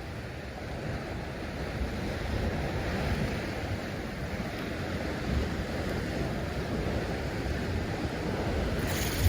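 Sea surf washing against a rocky shore, with wind buffeting the microphone; a brighter hiss joins near the end.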